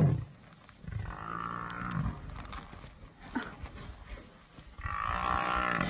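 Cape buffalo bellowing twice: a long call about a second in and another near the end. These are distress bellows from a buffalo being pulled at by lions.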